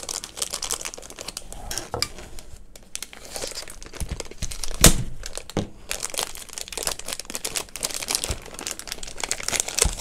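Clear plastic bag crinkling and rustling as it is opened and pulled off a device, with one sharp knock about halfway through.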